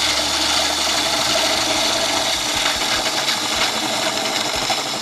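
Gouge cutting a spinning wooden top blank on a wood lathe: a steady shearing hiss of the cut, with the low hum of the lathe running under the first half. The cut is shaping a smooth curve on the top.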